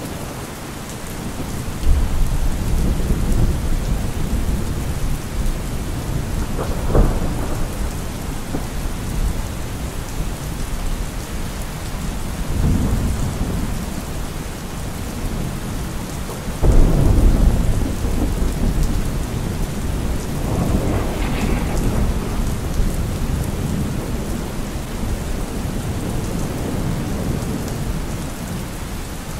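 Thunderstorm: steady rain with rolling thunder over it, several low rumbles that swell up suddenly. The loudest come about two seconds in and just past halfway.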